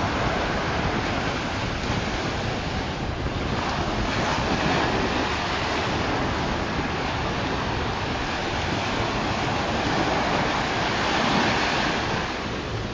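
Ocean surf washing onto the beach, with wind buffeting the microphone; the wash swells and eases as the waves come in, loudest shortly before the end.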